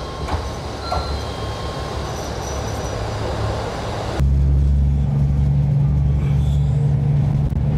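Diesel railcar of the Taita Line at a station: steady rumbling train noise, then about four seconds in an abrupt change to a louder, steady low engine hum with a few even tones, as of the railcar's diesel engine idling.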